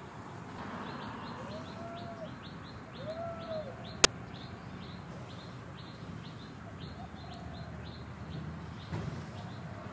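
Birds chirping: a steady run of short, high, falling chirps, with two lower rising-and-falling calls in the first few seconds. A single sharp click about four seconds in.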